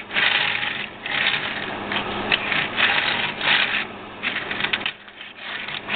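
Plastic wheels of a Transformers Turbo Tracks toy car rolling on a wooden tabletop as it is pushed back and forth. It makes a rough rattling grind that comes in several pushes with short pauses between them.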